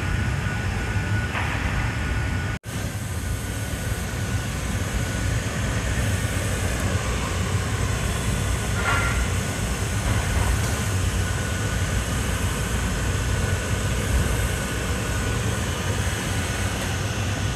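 Steady roar of a glassblowing studio's gas-fired glory hole and large floor fans, with a faint steady whine above it. The sound drops out for an instant about two and a half seconds in.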